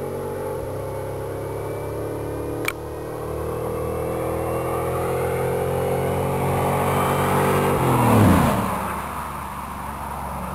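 Two V8s at full throttle, the supercharged 5.4-litre of a 2004 Ford SVT Lightning pickup and the 6.0-litre LS2 of a 2006 Pontiac GTO, racing side by side toward the listener with the engine note climbing steadily. About eight seconds in they pass close by, loudest at that point, and the pitch drops sharply as they pull away.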